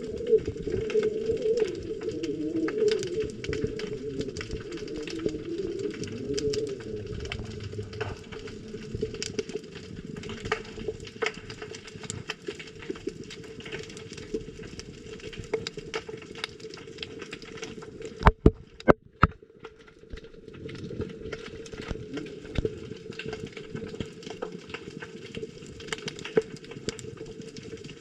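Underwater sound through a camera's waterproof housing: a low, muffled wash with steady scattered crackling clicks. A few sharp, louder clicks come close together about two-thirds of the way through.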